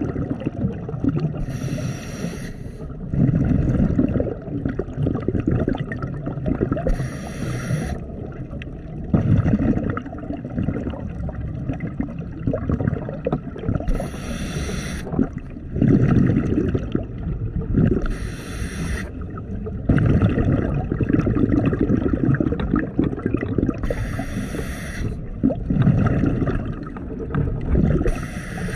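A scuba diver breathing through a regulator underwater: six short hissing inhales through the demand valve, several seconds apart, each followed by a longer low bubbling of exhaled air venting from the exhaust.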